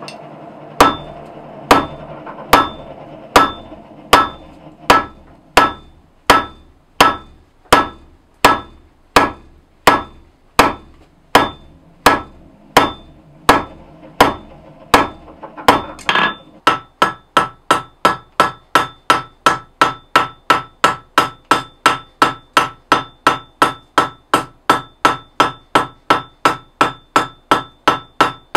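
Hand hammer striking red-hot 6 mm mild steel on an anvil, forging it out: a steady run of ringing blows, about one and a third a second. About sixteen seconds in, a faster run begins, about two blows a second, with a clearer ring.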